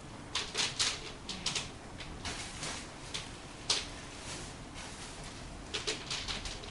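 Irregular sharp ticks and taps, some in quick clusters, over a steady hiss.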